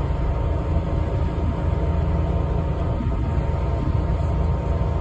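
Steady low engine rumble of a tour boat underway, heard from on board.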